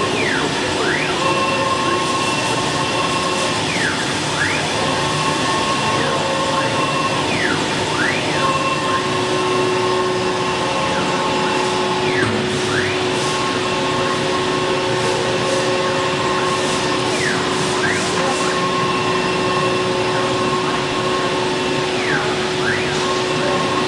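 1325 CNC wood router with a 4.5 kW spindle running steadily, with a hissing machining noise under several steady whines from the spindle and drives. A whine dips sharply in pitch and rises back every few seconds, as the axes slow and change direction.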